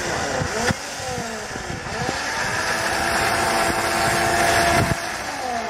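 Suzuki Vitara's engine revving up and down as it crawls through a steep gully, then holding steady revs for a couple of seconds before dropping back near the end. There is a short knock about a second in and another near the end.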